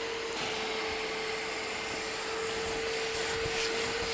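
Bissell handheld spot cleaner's suction motor running steadily: a constant whine over an even rush of air.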